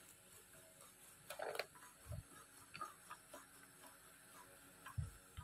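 Faint, scattered soft knocks and taps of a metal rolling pin working paratha dough on a marble board.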